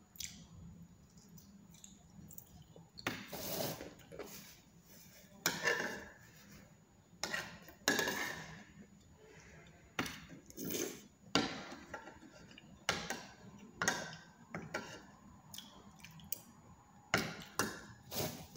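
Eating sounds: a spoon clinking and scraping on a ceramic plate with chewing, as short irregular clicks and scrapes. Near the end a tissue is pulled from a box.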